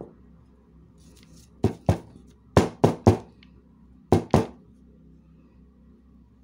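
Spray-painted wooden letter sign knocked against the tabletop to shake loose glitter off: seven sharp wooden knocks in groups of two, three and two.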